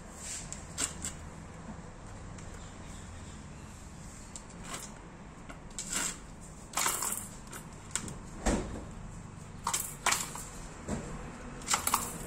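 Irregular plastic clicks and knocks from a kitten batting at and clambering on a plastic ball-track cat toy with a spring-mounted mouse, with one duller, louder thump about eight seconds in.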